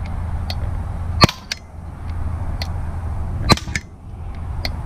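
Crosman Z77 CO2-powered BB gun firing two sharp pops about two seconds apart, with fainter ticks between them: the old gun is working again on a fresh CO2 cartridge.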